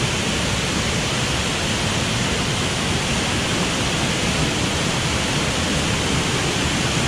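Waterfall swollen with rain, heard close up: a loud, steady rush of falling water.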